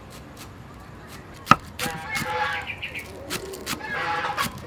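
Cleaver chopping green onions on a wooden chopping block, a run of sharp knife strikes with the loudest about a second and a half in. A chicken calls twice in the background.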